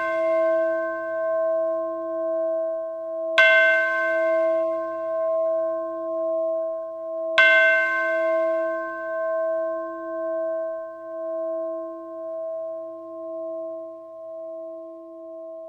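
A metal bowl-bell struck twice, about three and seven seconds in, on top of the ringing from a strike just before. Each strike rings on in a long, slowly pulsing wobble of steady tones, fading away near the end.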